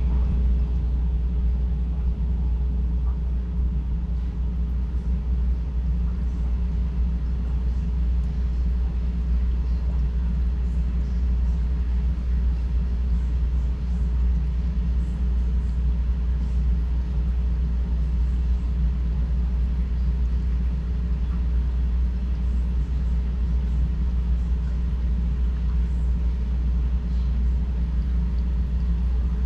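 Steady low rumble and hum of a large aquarium's filter pump and aeration running, with faint scattered ticks of bubbles over a light hiss.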